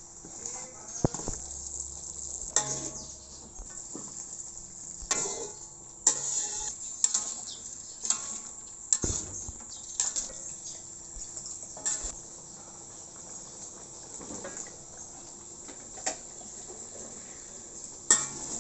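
Metal spatula stirring and scraping in a steel wok, with sharp knocks on the pan about every second, over a steady sizzle of chilli paste frying in oil. The knocks thin out in the later part, with one loud knock near the end.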